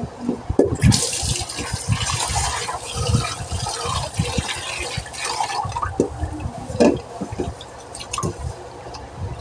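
Tap water pouring into a metal pot of rice while a hand rubs and swishes the grains: rice being washed. The pouring stops a little past halfway, leaving the swish of rice stirred in water and a few low knocks.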